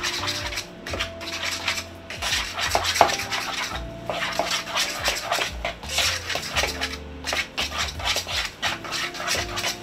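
A metal utensil stirring and scraping against a plastic mixing bowl, working a thick mixture of canned chicken and egg together in rapid, repeated strokes.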